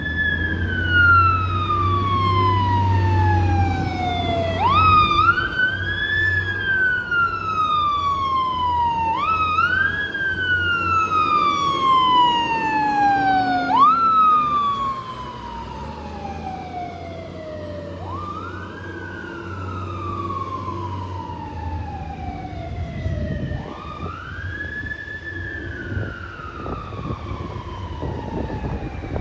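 Fire truck's mechanical siren winding up and coasting down over and over: each cycle is a quick rise to a high wail, then a long, slow fall in pitch lasting about four seconds. A low steady drone lies under it at the start and again about two-thirds of the way through, and the siren grows fainter about halfway.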